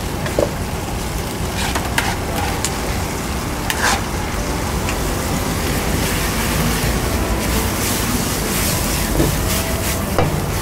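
Stir-frying on a hot pan: a steady sizzle, with a few sharp clicks of a metal utensil against the pan.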